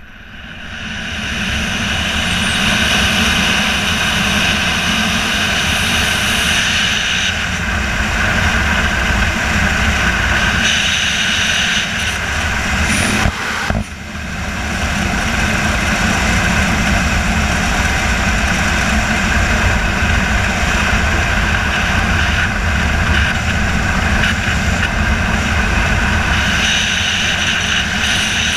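Airflow rushing over the camera's microphone during a wingsuit flight, a loud steady roar of wind. It swells over the first two seconds as the flier picks up speed after the exit, then holds, dipping briefly about thirteen seconds in.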